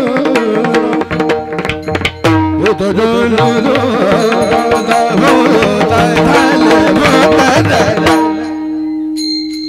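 Marathi bhajan: a singer draws out the refrain word 'utarle' in an ornamented melodic line over hand-drum strokes and a steady held drone. Near the end the drumming drops away and the drone holds on alone.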